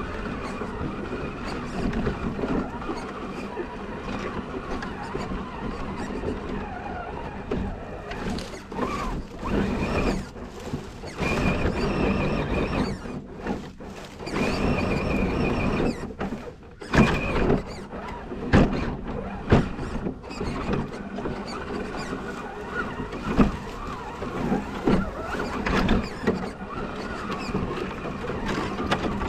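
Element RC Enduro Trail Runner scale crawler driving over rough ground, recorded from on board the truck: a steady high whine from its electric motor and geartrain, rising and falling with the throttle, over a constant clatter. Several sharp knocks come in the second half as it bumps over obstacles.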